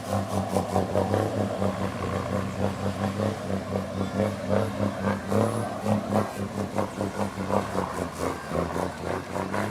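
Heavy vehicle engine running steadily, a low hum with a rapid, uneven clattering beat over it.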